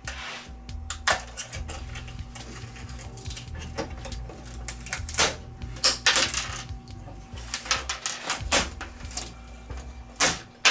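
Irregular clicks, taps and scraping rattles of small plastic and metal parts being handled while backlight strip connectors are unplugged and LED strips are worked off the TV's metal back chassis.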